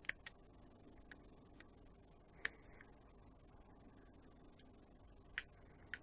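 Faint, scattered small clicks of plastic and metal parts as a partly disassembled Samsung Galaxy S2 phone is handled by fingers, with two louder clicks about two and a half and five and a half seconds in.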